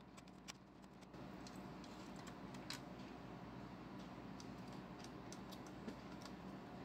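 Faint, scattered small clicks and taps as the amplifier's FM/USB module board and its wire connectors are handled and pulled out of the chassis, over a low steady hum.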